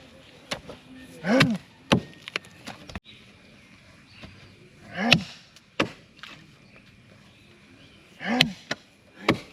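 Heavy hand-tool blows, like an axe, striking wood in three rounds about three and a half seconds apart. Each blow comes with a short grunt from the worker and is followed by a second sharp knock about half a second later.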